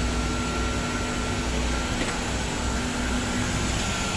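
Steady drone of running machinery: a constant hum and a thin high whine over a broad rush of noise and a low rumble.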